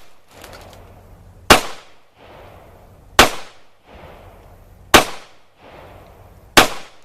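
Four handgun shots fired at an even pace, about one every one and three-quarter seconds, each followed by a short echo.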